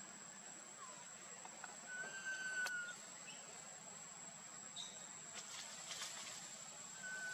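Forest ambience: a steady high-pitched insect drone, with one level whistled call lasting under a second about two seconds in and a sharp click just after it. A few faint short chirps come near the start, and faint scratchy rustling comes around five to six seconds.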